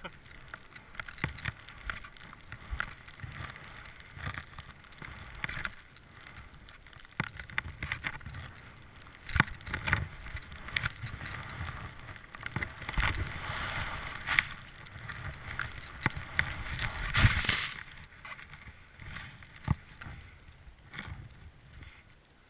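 Skis running through deep powder snow: an uneven swishing hiss broken by sharp knocks and thuds of skis and poles, loudest about three-quarters of the way through, then dying away near the end.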